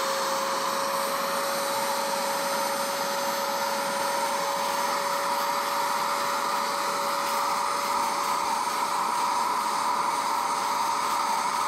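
Portable carpet spot cleaner (wet extractor) running steadily: the suction motor's even whine over a rushing of air, as its hand tool sprays and scrubs cleaner into a carpet.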